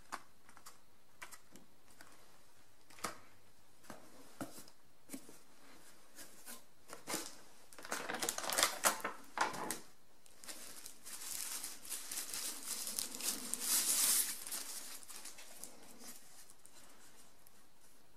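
Cardboard box and plastic packaging being handled: scattered light taps and clicks, then from about halfway through a longer stretch of crinkling and rustling plastic.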